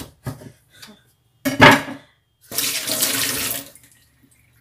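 Light knocks of a kitchen knife on a wooden chopping board and one louder knock, then a kitchen tap runs into a steel sink for about a second.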